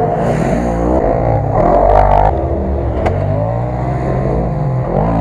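Side-by-side UTV engines revving as the buggies drive past on a dirt trail, the engine pitch rising and falling several times.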